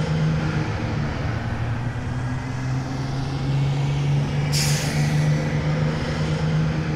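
Bus engine running steadily as the bus drives along, with one short air-brake-like hiss about four and a half seconds in.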